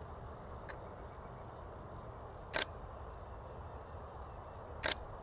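Nikon D500 DSLR shutter and mirror firing single frames, two sharp clicks a little over two seconds apart, with a fainter click just under a second in, over steady low outdoor background noise.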